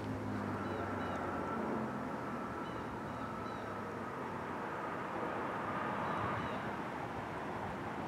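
Faint, distant outdoor warning siren holding a steady high tone that dips slightly partway through, with small birds chirping. A low hum fades out about two seconds in.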